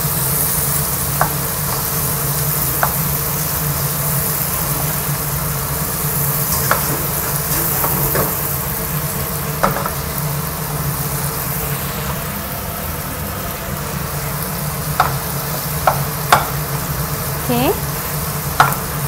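Quartered onions, green chillies and tomato sizzling in oil in a wok while being stirred with a wooden spatula, which knocks against the pan now and then in short clicks. A steady low hum runs underneath.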